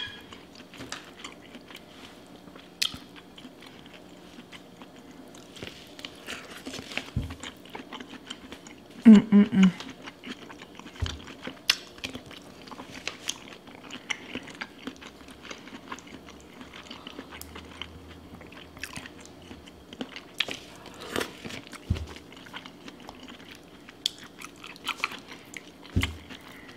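Close-miked eating of a seafood boil: chewing and lip smacks with many wet clicks, and hands squishing through sauce-soaked food in a glass bowl. A few dull knocks, and a brief voiced sound about nine seconds in.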